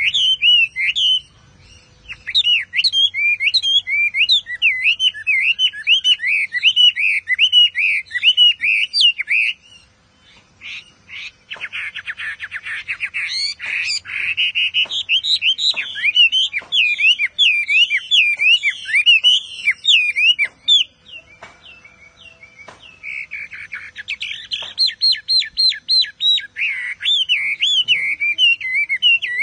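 Chinese hwamei singing a long run of rapid, swooping whistled phrases, broken by a few short pauses. Twice the song breaks into denser, harsh buzzy trills.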